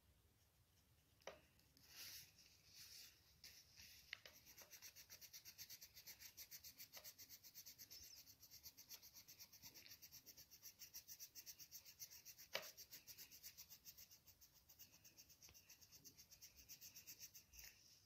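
Pencil scribbling quickly back and forth on paper while shading in a drawing: a faint, rapid, even run of scratchy strokes, several a second. A couple of sharp ticks stand out, one about a second in and a louder one about twelve and a half seconds in.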